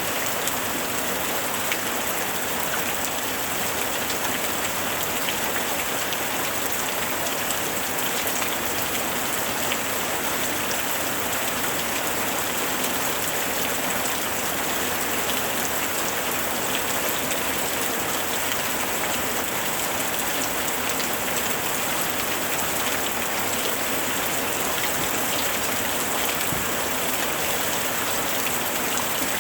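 Steady rain falling: a dense, even hiss made of countless small drop ticks, with no change in strength.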